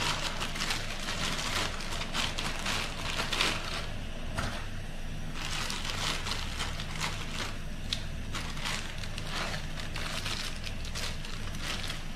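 Crinkling and crunching of a plastic instant-noodle packet being handled as the dry noodle block goes into a pot of boiling water. Underneath is a steady low rumble from the portable gas stove's burner and the boiling water. The crinkling comes in irregular runs, with a pause around four to five seconds in.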